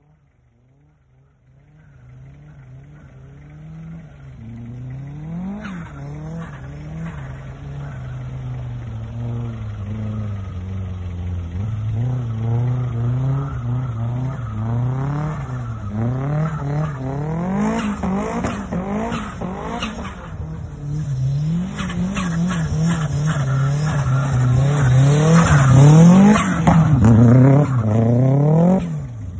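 Mitsubishi Lancer Evo VI's turbocharged four-cylinder engine revving up and down over and over while the car drifts on snow, its pitch rising and falling about once a second, with a hiss of spinning tyres. It fades in after a second or two, grows louder as the car comes closer, and drops off sharply just before the end.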